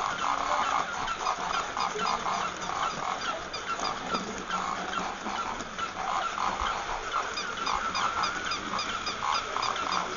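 Battery-operated walking toy animals running: steady quick mechanical ticking, with short animal-like toy calls repeated over and over.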